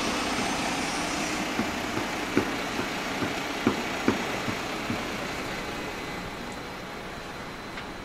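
Construction-site machinery: a heavy engine running steadily, with a series of sharp knocks about two to five seconds in, the noise slowly fading toward the end.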